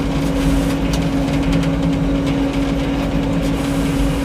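An engine running steadily at a constant speed, giving an even hum.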